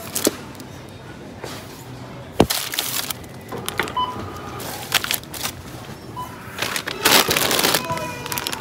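Groceries being handled and set down on a checkout counter: knocks, clunks and crinkling plastic packaging, with a louder spell of crackling about seven seconds in. A few short electronic beeps sound around the middle and near the end.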